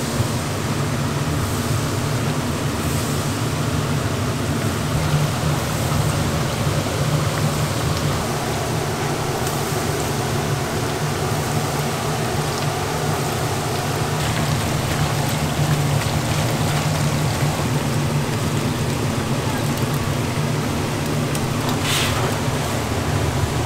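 Battered squid and other twigim sizzling in a pot of hot deep-frying oil: a steady crackling hiss over a steady low hum. Near the end comes a brief metal scrape as a wire strainer scoops the fried pieces out.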